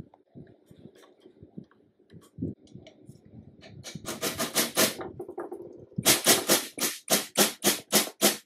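Hammer striking a metal drift held against the cast-iron arm of an antique sewing machine. A quick run of light taps comes about four seconds in. After a short pause, a second run of louder, evenly spaced blows follows at about five a second.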